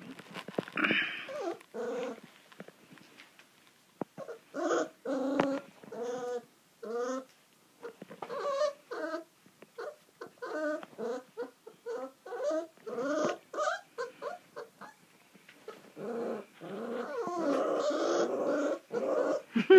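Four-week-old Kuvasz puppies whimpering and growling in many short, wavering calls, which start after a quiet stretch about four seconds in and run together more near the end.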